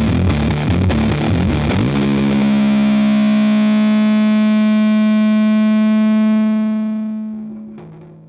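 Closing music with a distorted guitar sound: a busy rhythmic passage ends about two seconds in on one held chord, which rings steadily and then fades out near the end.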